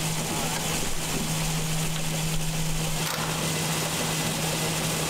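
Grain bin machinery running steadily: a constant low motor hum over an even rushing noise.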